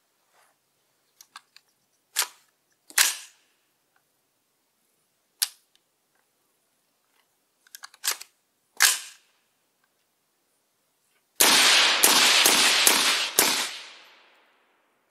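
Suppressed semi-automatic rifle firing: five single shots spaced a second or more apart, then a rapid string of about five shots in quick succession near the end.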